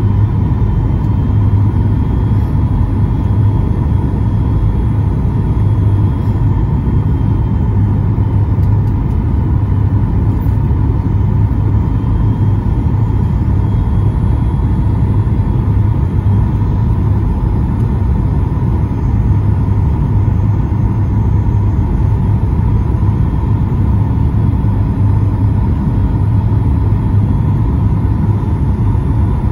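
Steady cabin noise of a Boeing 737 MAX 8 on approach, heard from a seat just ahead of the wing: a deep rumble of airflow and its CFM LEAP-1B engines, with a steady whine held on one pitch.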